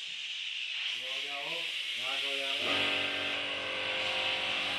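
Small air compressor's motor winding down in pitch as it is switched off at the pressure-switch button, with air hissing on. About two and a half seconds in, the motor starts again and runs steadily.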